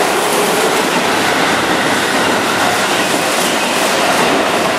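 Keihan 9000 series VVVF electric train moving through the station past the platform, a steady rush of wheel and rail noise.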